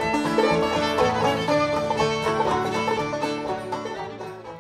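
Upbeat string-band music with banjo and fiddle, fading out over the last second and a half.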